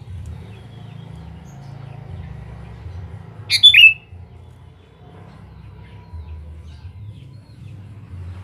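Sooty-headed bulbul giving one short, loud call with a falling note about three and a half seconds in, over a low steady rumble.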